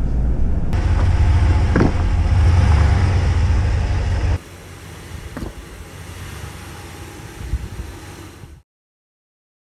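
Ram Rebel pickup driving off-road, with a loud low rumble from the engine and drivetrain. About four seconds in the sound drops abruptly to quieter running, and it cuts to silence near the end.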